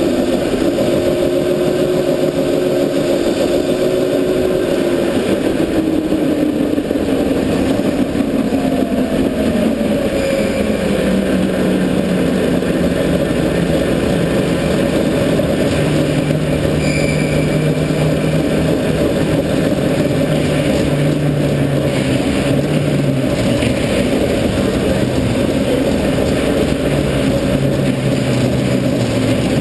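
Go-kart running at speed around an indoor track, recorded from a camera on the kart. Its motor note holds high at first, falls away after about five seconds, settles at a lower steady pitch, and drops again a few seconds before the end.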